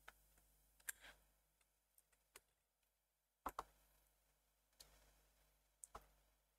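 Near silence: room tone with a few faint, sharp clicks. Two of them come as a quick pair about three and a half seconds in, and another pair comes near the end.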